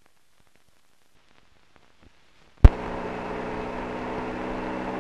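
A silent film soundtrack with faint crackles, then one loud click about two and a half seconds in as the sound comes on. After it, the steady hiss and low hum of an open radio communications channel.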